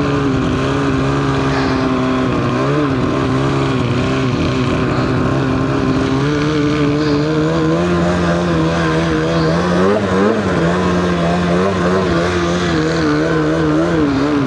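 Turbocharged two-stroke snowmobile engine (Polaris Khaos Boost with an SLP Competition Can exhaust) running at steady part throttle, its pitch wavering gently as the throttle is eased and reapplied.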